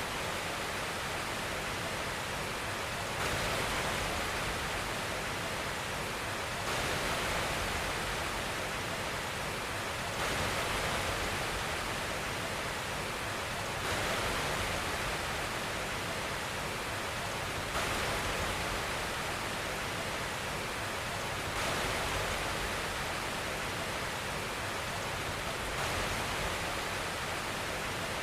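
Steady white noise hiss with no tone or rhythm in it, shifting slightly louder and brighter, then back, every few seconds.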